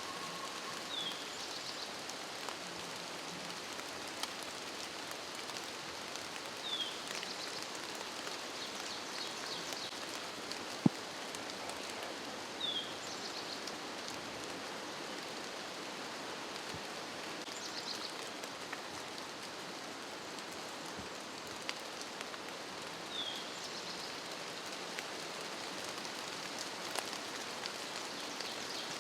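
Steady hiss of rain falling. A songbird repeats the same short phrase about every five to six seconds, and one sharp click sounds about eleven seconds in.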